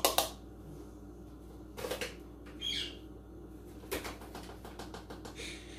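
Flour being scooped with a measuring cup from a large bag: several short bouts of rustling and scraping with light clicks of the cup, separated by pauses.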